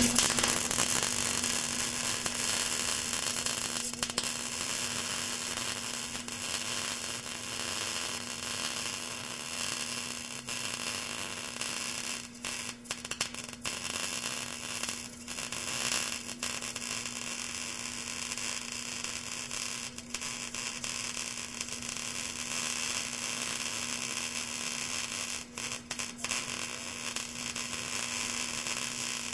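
Electric arc welding: the arc's steady crackling hiss over a constant electrical hum, dipping briefly a few times when the arc breaks.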